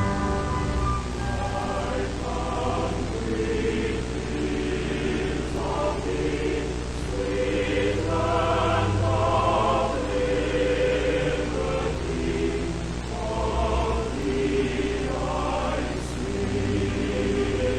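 A choir singing slow, held notes that change every second or two, over a steady low drone.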